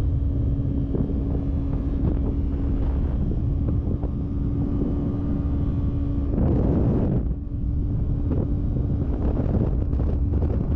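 Yamaha YZF-R3's 321cc parallel-twin engine running at a steady cruise, heard under heavy wind rumble on the microphone. About six seconds in, a louder rush of noise passes and the engine note drops away for a few seconds.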